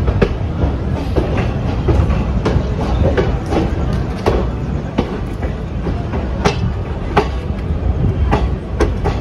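Express train coaches running out of a station, a steady low rumble with the wheels clicking irregularly over rail joints and points.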